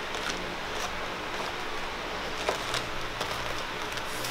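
Steady room hiss with a few faint taps and rustles as paperboard candy boxes are handled and stacked.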